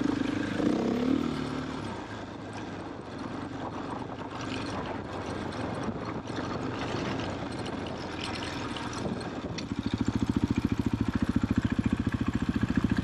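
KTM trail motorcycle engine running, with some clatter; about ten seconds in it settles into an even, fast-pulsing idle.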